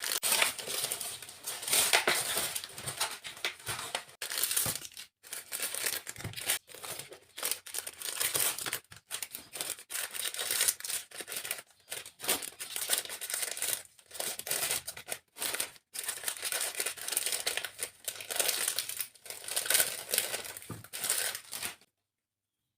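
Croissants being torn apart by hand: flaky pastry crackling and tearing in short irregular bursts, stopping abruptly near the end.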